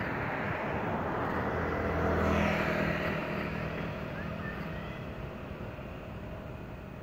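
A motor vehicle passing on the road, its engine and tyre noise swelling to loudest about two seconds in and then fading away.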